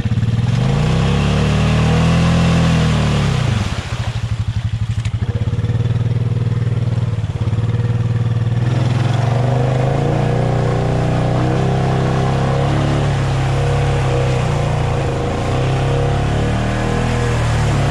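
Honda ATV engine revving up and back down, then running steadily with small rises and falls in pitch as it drives through mud. A hiss of splashing water and mud runs through the first half.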